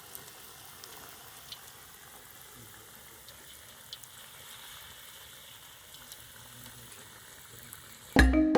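Bajia dough frying in hot coconut oil: a faint, steady sizzle with occasional small pops. Percussive music cuts in suddenly near the end.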